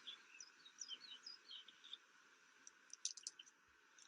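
Faint chirping of small birds: a string of short, quick chirps, thinning out after the first couple of seconds, over a soft hiss. A few faint high clicks come about three seconds in.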